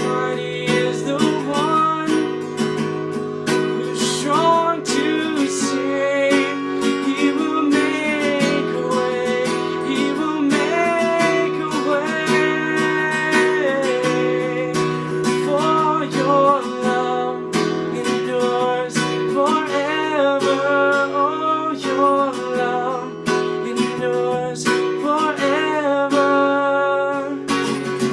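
Acoustic guitar strummed steadily through a wordless instrumental passage of a worship song, with a wavering melody line over the chords.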